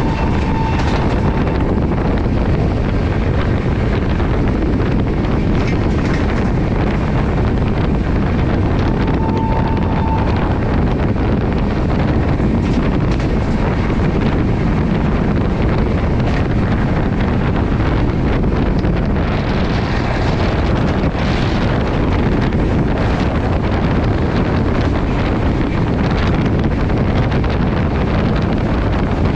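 Shatabdi Express train running at speed, recorded on board: a steady rush of wind buffeting the microphone over the running rumble of the coach. A short steady tone sounds briefly about nine seconds in.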